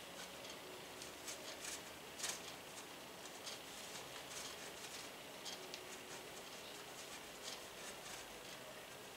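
A slice of sandwich bread being grated into crumbs on a metal box grater: faint, irregular scratching strokes.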